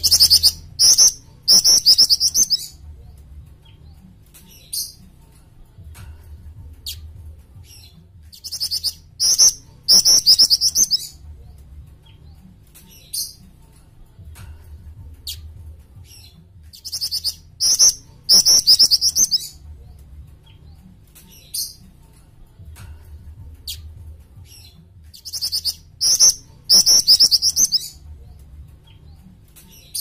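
Jing-jing, a small flycatcher-shrike, singing: four loud runs of rapid, high-pitched trilled notes, each two to three seconds long and about eight seconds apart, with single sharp chirps in between.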